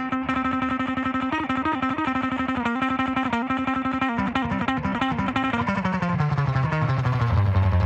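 Distorted electric guitar rapidly picking one held note, which slides slowly downward over the last couple of seconds, as the intro of a heavy metal track.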